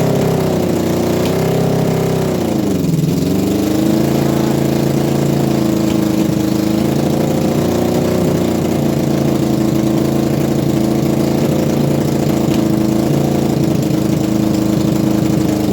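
Honda CB750F air-cooled inline-four engine running at steady revs in gear during a transmission test. The engine note drops sharply about three seconds in, then climbs back and holds steady.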